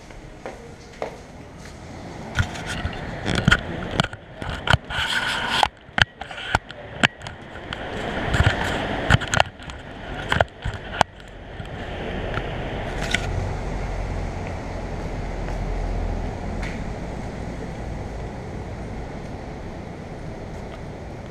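A run of sharp knocks and clicks with rustling in between, then a steady low rumble of city street traffic that swells about halfway through.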